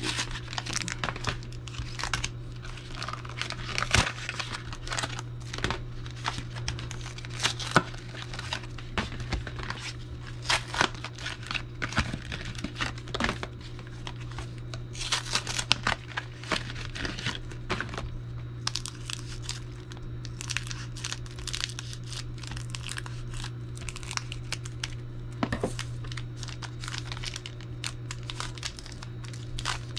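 Foil trading-card booster pack wrappers being torn open and crinkled, in irregular crackling bursts over a steady low hum.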